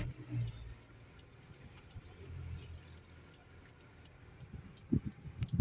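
Low vehicle rumble heard from inside a stopped car, with faint ticking, a sharp click at the start and a few knocks about five seconds in.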